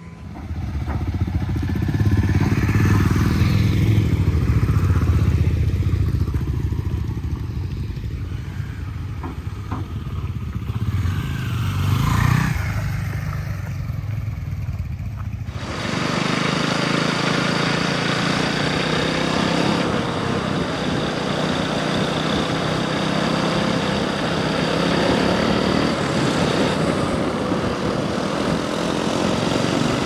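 Motorcycle engines running and revving, with a louder rev a little before halfway. About halfway the sound changes abruptly to a steadier engine note under an even hiss.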